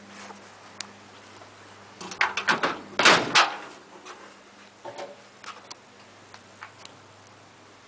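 Metal driver's door of a 1967 Nissan Patrol being unlatched and opened: a quick run of clicks about two seconds in, then a loud clunk and rattle as the door swings open, followed by a few lighter knocks.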